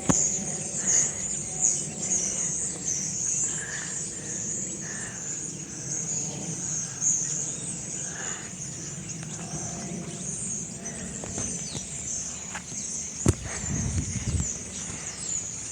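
A large flock of birds calling all at once, a dense, continuous chatter of overlapping high chirps. A sharp knock about thirteen seconds in is followed by a brief low rumble.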